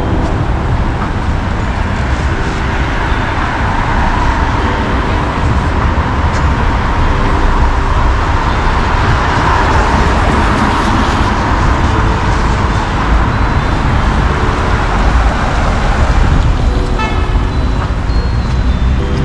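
City street traffic: a steady hum of cars and engines going by, swelling as a vehicle passes close about halfway through.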